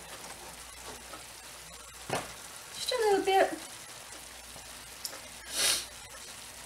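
Steak strips, onions and bell peppers frying in a skillet with a steady sizzle. A single knock comes about two seconds in, a short hummed vocal sound about a second later, and a brief louder rush of hiss near the end.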